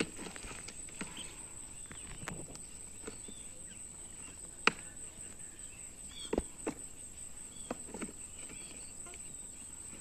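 Scattered plastic clicks and knocks from a ride-on toy excavator as its digging arm is worked: one sharp click about halfway through and a few more soon after. Under them runs a steady high-pitched insect drone.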